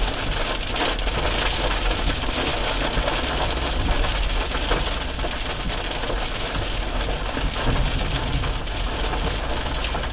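Heavy rain pelting a car's windshield and roof, heard from inside the cabin, with the wipers sweeping and a steady low hum of the moving car underneath.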